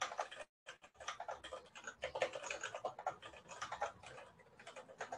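Typing on a computer keyboard: a fast run of key clicks, with a brief pause about half a second in.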